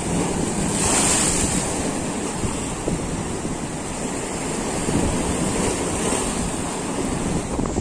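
Sea surf breaking and washing over shoreline rocks, with wind buffeting the microphone; a wave breaks louder about a second in.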